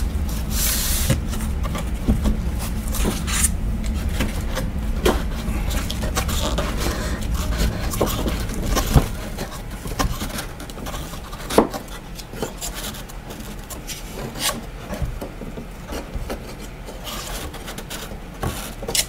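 Foam-core, wood-surfaced model airplane stabilizer being pushed along its support tubes, rubbing and scraping, with a few sharp knocks. The rubbing is louder for the first half and then fades.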